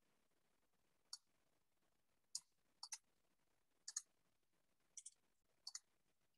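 Faint clicks of a computer mouse button, about ten in all, most of them in quick pairs, with near silence between.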